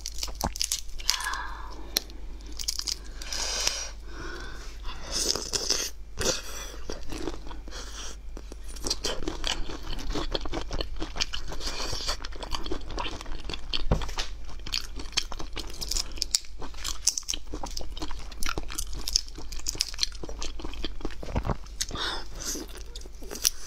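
Shell of a large cooked prawn cracking and crackling as it is pulled apart by hand, mixed with close-up chewing and biting of the prawn meat. Dense crackly clicks keep up throughout.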